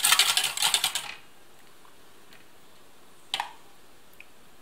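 Wire balloon whisk beating a thick vinaigrette in a stainless steel bowl: rapid clinking and scraping of the wires against the metal that stops about a second in. One light tap follows a couple of seconds later.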